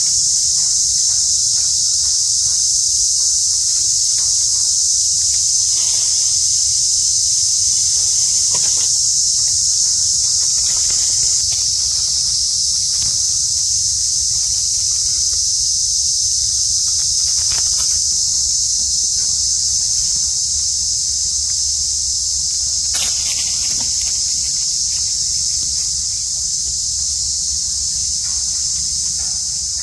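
A dense insect chorus: a loud, steady, high-pitched drone without a break, with a few brief faint rustles over it.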